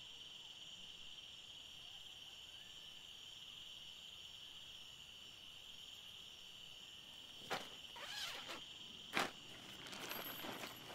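Steady high-pitched insect chorus. In the last few seconds, camping gear is handled close by: a few short rustles and one sharp click.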